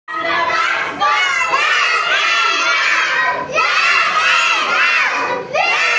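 A classroom full of young children shouting and calling out all at once, many high voices overlapping, with short lulls about a second in, halfway through and near the end.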